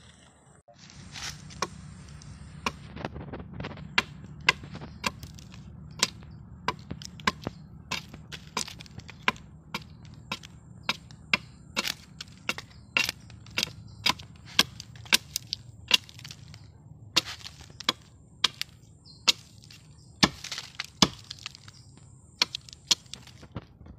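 Machete chopping into the trunk of an Aquilaria filaria agarwood tree, a long irregular run of sharp strikes about two or three a second, stripping away bark to open the inoculated wood.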